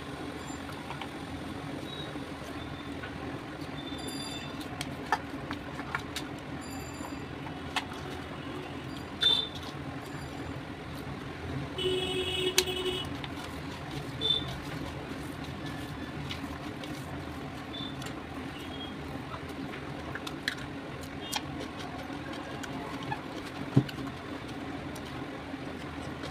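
Fingers mixing and scooping rice in a stainless steel bowl, giving scattered small clicks and scrapes against the metal over a steady background hum. A brief high tone sounds about twelve seconds in.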